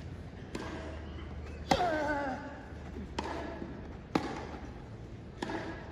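Tennis ball struck back and forth by racket in a rally on a grass court: five sharp hits, each one to one and a half seconds after the last. Some hits come with a short grunt from a player.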